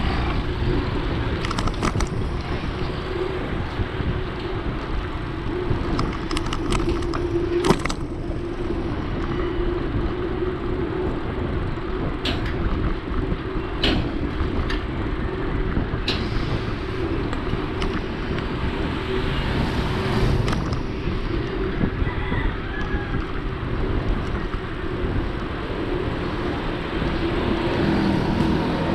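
Steady wind and road noise from riding along a road, with passing traffic and a few short sharp clicks scattered through.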